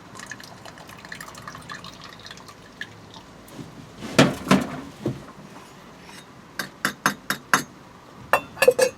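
Cordial dripping and trickling through a funnel into glass bottles, followed by sharp clinks and knocks of the glass bottles and funnel being handled: a pair of loud knocks about four seconds in and a quick run of clicks near the end.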